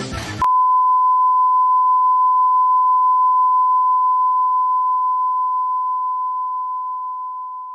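A single steady electronic beep tone: one pure, unchanging pitch that starts abruptly about half a second in and fades slowly near the end.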